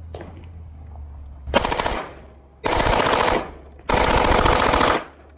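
Fully automatic gun fired from inside a briefcase: three bursts of rapid fire, each longer than the last.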